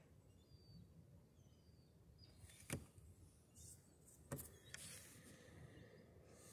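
Near silence over calm water: a faint low hiss with a few faint high chirps, broken by two sharp knocks, the first nearly three seconds in and the second about a second and a half later.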